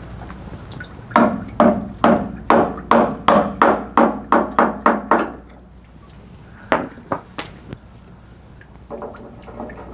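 A hammer tapping a flathead screwdriver against the tabs of a 1973 Dodge B100 van's fuel-tank sending-unit lock ring, driving the ring around to unlock it. It starts with a quick run of about a dozen sharp taps, roughly three a second, then after a pause come four lighter taps.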